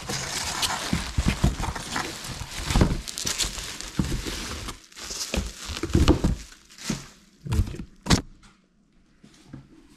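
A cardboard parcel being unpacked by hand: rustling and scraping of the packing material for a few seconds, then a string of separate knocks and thumps as the box and its contents are handled, growing sparser near the end.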